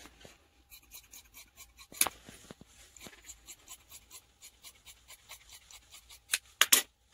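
Large dressmaker's shears cutting through folded stretch fabric: a steady run of short snips and blade clicks, a few a second, with louder clacks about two seconds in and near the end.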